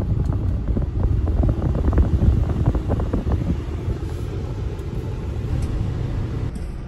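Car air conditioning blowing hard from the dashboard vents, the airflow buffeting the phone's microphone in a gusty low rumble, with the engine running underneath.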